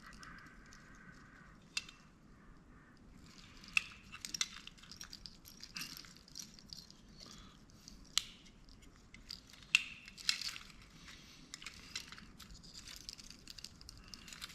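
Faint clicks, taps and scraping as the small parts of a dome security camera are handled and worked loose by hand during disassembly, with a few sharper clicks scattered through.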